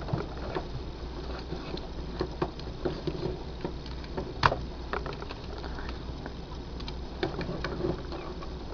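Plastic parts of the Transformers Energon Rodimus and Prowl toys being handled and fitted together: scattered light clicks and taps, with one sharper click about four and a half seconds in, over a steady low hum.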